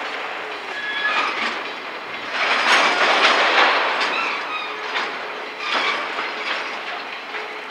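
Railway tank wagons rolling slowly past on worn track, wheels clacking and knocking over rail joints with a few short, high squeals. Loudest about three seconds in.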